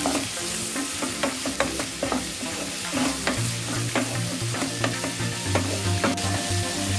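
Wooden spatula stirring onions and tomatoes frying in oil in a nonstick wok: a steady sizzle with many quick scrapes and taps of the spatula against the pan.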